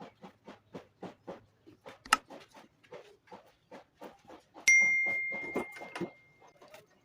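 Quick, even tapping strikes in a woodworking shop, about four a second. About halfway through, one sharp metallic ding rings on and fades over nearly two seconds.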